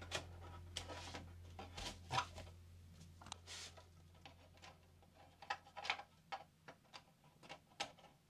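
Irregular light clicks and taps of hard plastic as a Tamiya Scania 770S model truck cab is handled, turned over and pressed on by hand, with a dozen or so small knocks spread unevenly.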